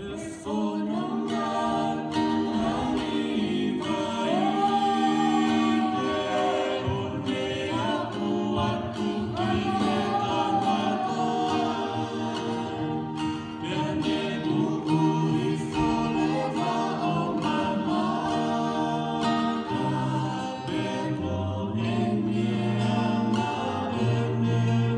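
Live group singing accompanied by an acoustic guitar: a young woman's voice sings lead into a microphone with a few young men's voices joining, in a slow, sustained song.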